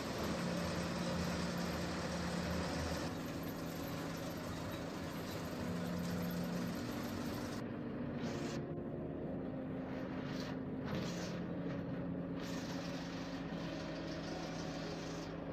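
A safari vehicle runs along a forest track, heard as a steady engine and road rumble from inside the cabin. Over it, slow background music plays held notes that change pitch every second or two.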